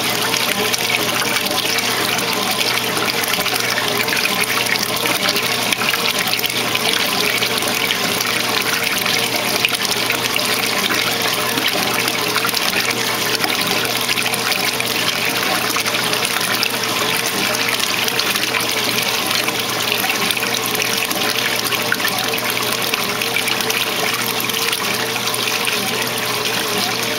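A 1968 Whirlpool-built Kenmore 900 series top-loading washer agitating a full load: water churning and sloshing in the tub with each back-and-forth stroke of the agitator, over a steady motor hum.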